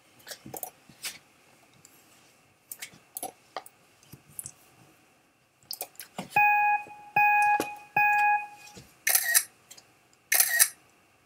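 Apple Photo Booth's four-photo countdown: three steady, evenly spaced beeps, each held under a second, then, about nine seconds in, the first two of its camera-shutter clicks, one about every second and a quarter. A few faint clicks come before the beeps.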